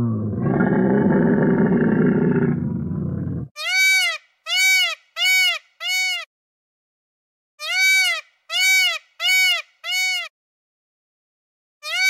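A camel's long, rough groaning bellow for about three and a half seconds. Then an Indian peacock gives loud, high, rising-and-falling cries in a series: four, a pause, four more, and another near the end.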